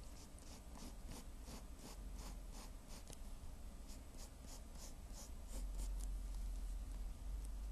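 Drawing strokes on paper, short quick scratches about three a second, sketching a manga face, with a pause near the end. A steady low hum runs underneath.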